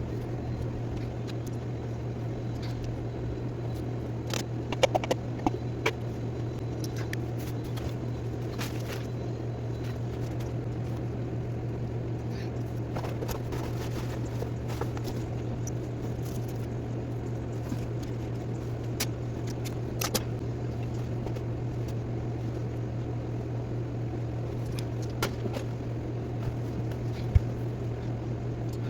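A steady low hum with scattered clicks and light clatter of toys and household items being picked up and put away.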